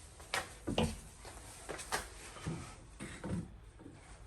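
A series of light clicks and knocks from small carburetor parts being handled and taken apart by hand, the sharpest two in the first second.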